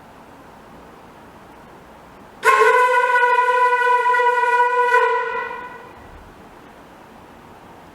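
A single long, steady note on a wind instrument, starting abruptly about two and a half seconds in and fading away about a second after it ends.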